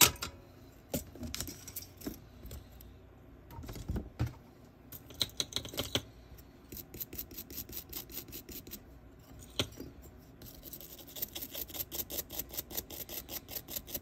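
A flat metal file scraping in quick, even strokes against a replacement micro-USB port's metal shell on a projector circuit board, about three strokes a second through the second half, after a few scattered clicks and taps of handling. The port is being shaped to fit in place of the unmatched original.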